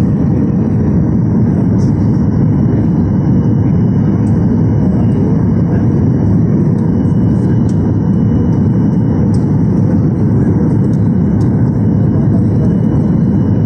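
Airliner cabin noise on final approach: jet engines running and air rushing past the fuselage in a steady low roar, with faint steady high-pitched tones above it.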